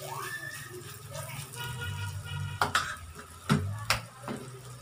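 Battered saba bananas frying in shallow oil in a frying pan, a steady sizzle, with metal tongs clicking sharply against the pan four times in the second half.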